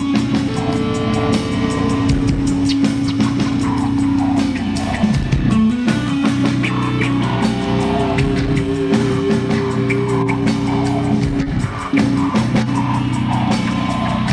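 Rock band playing live: distorted electric guitars with sustained notes over a drum kit keeping a steady beat.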